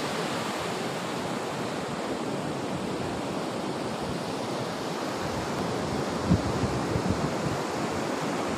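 Surf breaking on a sandy beach, a steady rush of waves, with wind on the microphone and a few low thumps about six and seven seconds in.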